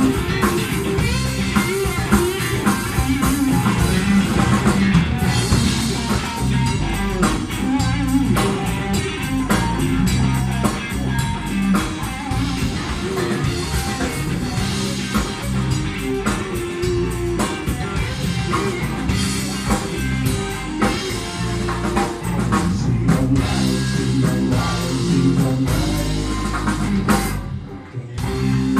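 Live band playing: electric guitar, electric bass and drum kit, with a woman singing. The music drops out briefly near the end, then comes back in.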